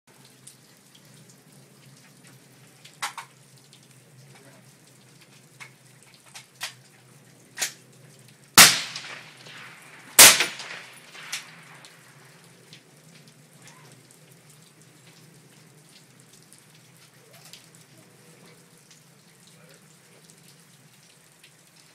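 Two suppressed shots from a .308 AR-10-style rifle fitted with an AAC Blackout suppressor, about a second and a half apart, each trailing off briefly, over steady rain. A few fainter sharp clicks come before and after the shots.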